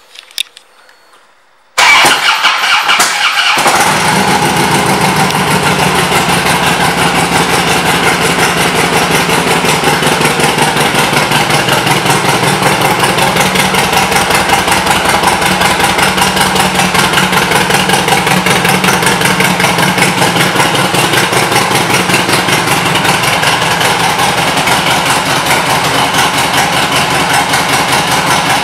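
2007 Harley-Davidson Street Glide's air-cooled Twin Cam 96 V-twin being started: a few faint clicks, then the starter and engine catch about two seconds in, and it settles into a steady idle.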